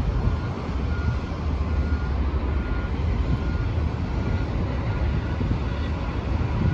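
Single-deck diesel buses manoeuvring slowly, their engines a steady low rumble, with a faint short beep repeating about twice a second.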